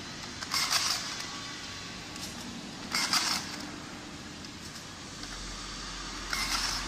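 Battery-powered rebar tying tool firing three times, each a short mechanical burst of under half a second as it feeds tie wire around a rebar crossing and twists it tight. The bursts come about two and a half to three seconds apart, over a steady background hum.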